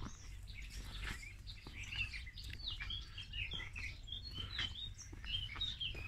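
Small songbirds chirping, with a busy run of short quick chirps from about two seconds in. A low rumble and a few soft clicks lie underneath.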